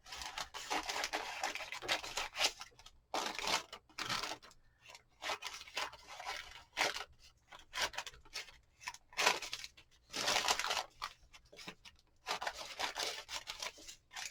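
Decorative parchment paper, glued onto a tag, being cut around the tag's edge in a series of irregular scratchy strokes with short pauses between them.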